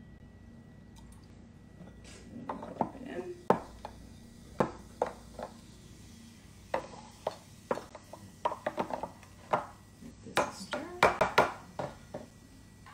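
Knife knocking on a cutting board and utensils clinking against dishes as fresh peaches are cut and added to a drink, in irregular taps that come thickest near the end.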